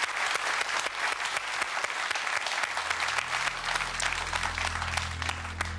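Studio audience clapping steadily. About halfway through, a low steady hum comes in underneath.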